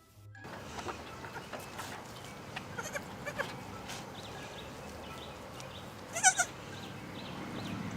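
A farm animal bleating: one loud, wavering bleat about six seconds in, after some fainter calls, over steady background noise.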